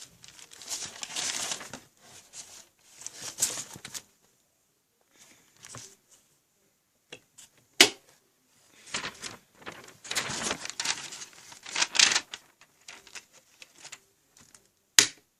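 Paper and small objects being handled: irregular bursts of rustling and shuffling, with a sharp knock about eight seconds in and another near the end.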